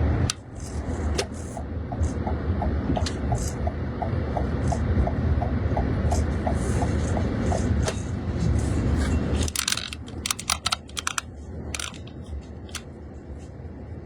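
Low steady rumble of a running car heard from inside, with a fast string of short beeps. About nine and a half seconds in the rumble stops abruptly, followed by a quick flurry of clicks and rattles.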